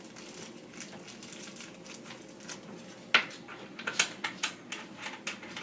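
Light clicks and taps of ceiling-fan parts being handled during assembly: quiet room at first, then a quick run of about ten sharp clicks in the second half.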